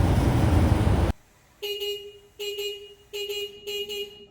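Forklift horn tooted in a string of short, steady-pitched beeps, after a loud rumbling noise that cuts off about a second in.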